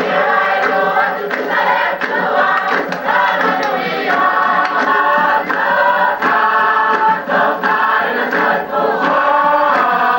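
A group of voices singing together in chorus, with sharp percussive hits sounding through the song.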